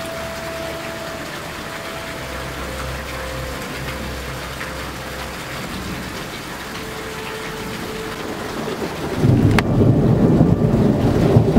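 Steady rain hiss, then about nine seconds in a loud low rumble sets in and keeps going, with a single sharp click just after it starts.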